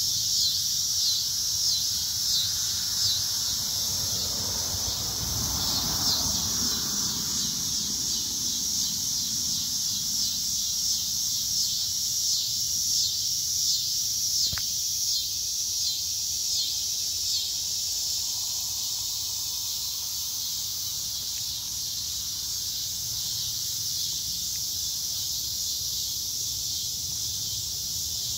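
Loud, steady chorus of insects, high-pitched and pulsing in a regular rhythm for the first half before evening out. A single sharp click sounds about halfway through.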